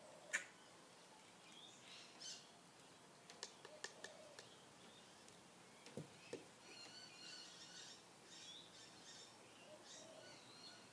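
Near-silent room with small clicks and taps from handling a plastic jar and syringe, the sharpest click about half a second in, and two light knocks on the table about six seconds in. Faint high chirping of birds runs through the second half.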